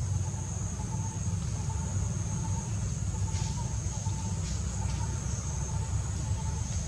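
Steady outdoor background noise: a low rumble with a thin, high, steady whine above it and faint, broken chirping. No monkey calls.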